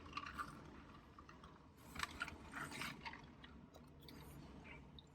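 Faint chewing and crunching of food in a few short bouts, heard close up.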